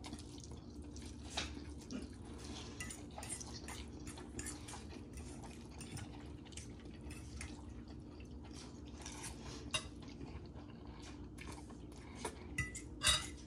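Metal forks clinking and scraping on plates while noodles are twirled and slurped, a scatter of faint short clicks with a few sharper ones near the end.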